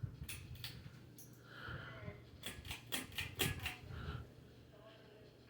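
Faint low hum of a ceiling fan running, with scattered light clicks and taps.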